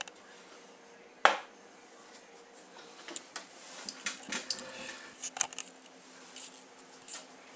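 One sharp knock about a second in, then a scatter of light clicks and short scrapes.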